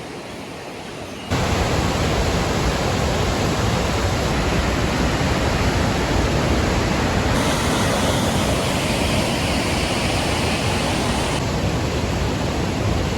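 Loud, steady rushing noise with no tones in it, starting abruptly about a second in and shifting slightly at two sudden steps.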